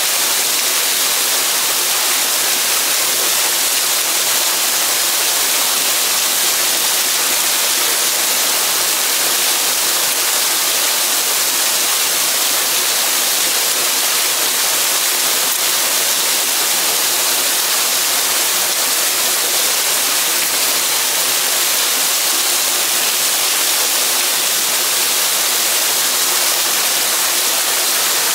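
Steady rushing of a waterfall pouring into a rock pool, an even hiss-like roar with no breaks.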